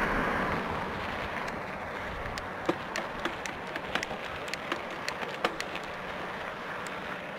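Mountain bike tyres rolling over a gravel road shoulder: a steady rush of tyre and wind noise, easing in the first second or so, with many irregular sharp ticks of small stones crackling under the tyres.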